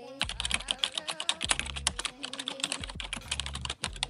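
Keyboard typing sound effect: a rapid, uneven run of key clicks with a short break near the end, over background music with a low pulse.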